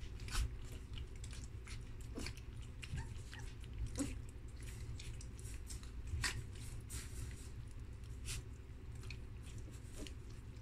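Three-week-old German Shepherd puppies lapping goat milk from a shallow tray: irregular wet clicks and smacks of several small tongues, with a low steady hum underneath.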